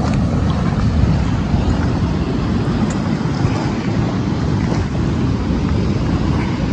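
Steady low roar of fast-flowing canal water, with wind buffeting the microphone.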